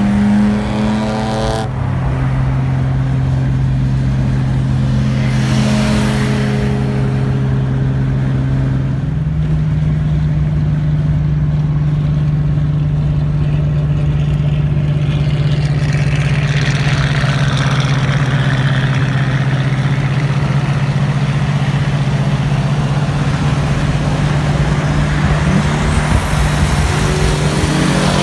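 Car engines running at steady freeway cruising speed with road and wind noise; the engine tone steps up in pitch about nine seconds in, and rises as a car accelerates near the start and again near the end.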